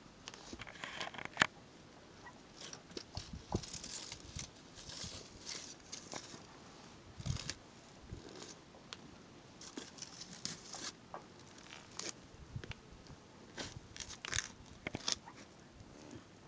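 A small apple being slowly crushed under the sole of a juft-leather Soviet marine boot on concrete: an irregular run of crunches and sharp cracks as the fruit gives way.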